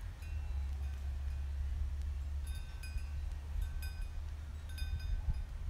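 Wind chimes ringing in scattered clusters of bright notes over a low, steady rumble.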